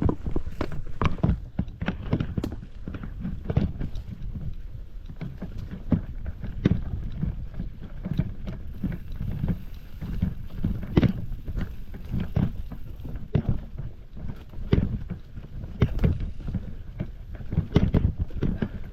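Mountain bike rolling over a rough trail: irregular knocks and rattles over a steady low rumble of wind on the microphone.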